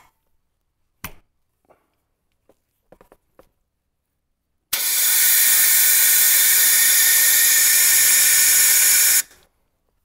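Air blown through a tractor's fuel line from the tank and out the open fuel filter housing: a loud, steady hiss lasting about four and a half seconds that starts sharply about halfway in and cuts off suddenly. A few light clicks and taps come before it.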